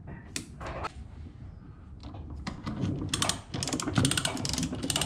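Hand come-along ratcheting. A couple of sharp clicks come as the hook is clipped on, then from about two and a half seconds in there is a fast, even run of pawl clicks as the handle is worked to take up the boat lift.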